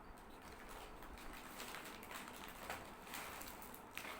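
Faint crinkling and scattered small clicks of biscuit packets being handled, a few sharper crackles standing out in the second half.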